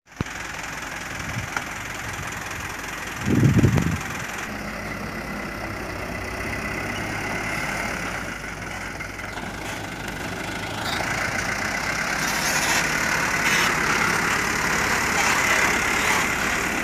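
Hino Dutro dump truck's diesel engine running at low speed, a steady hum. There is a brief loud low burst about three seconds in, and the engine grows louder from about eleven seconds in.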